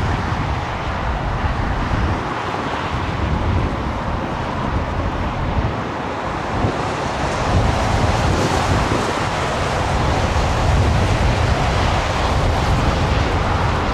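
Wind buffeting the microphone over the steady rumble of an SAS Embraer 195's twin turbofan engines at taxi power, growing a little louder in the second half.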